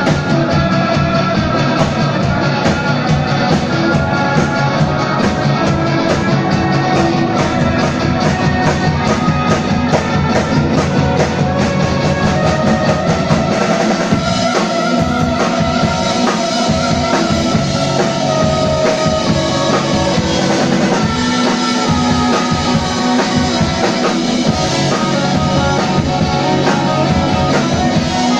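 Live rock band playing loudly: electric bass, electric guitar and drum kit, with a steady drum beat.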